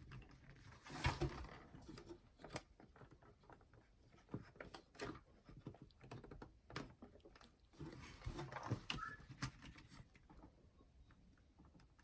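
Irregular light clicks, taps and rustles of hands working on the plastic casing and internal parts of a clock radio/cassette player while it is being taken apart, with small flurries of handling about a second in and again near the end.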